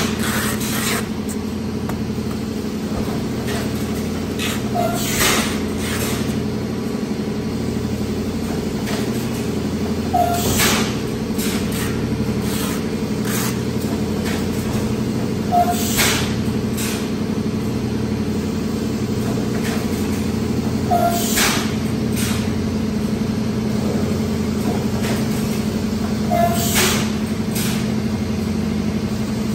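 Automatic plastic jar stretch blow molding machine running with a steady hum. About every five and a half seconds there is a sharp burst of compressed air as each blowing cycle exhausts, each burst just after a short high blip. Lighter mechanical clicks come in between.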